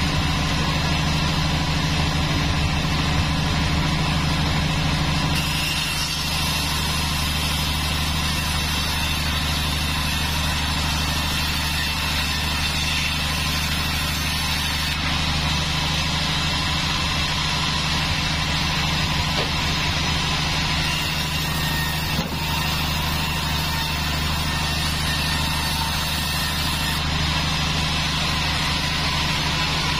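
A Taiwan-made 36-inch vertical band sawmill runs steadily with a low motor hum while its blade saws lengthwise through a village-grown teak log. The hiss of the cut brightens and fades a few times as the log is fed through.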